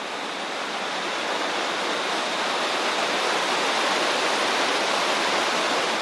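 Small waterfall: a steady rush of falling water that grows a little louder over the first few seconds.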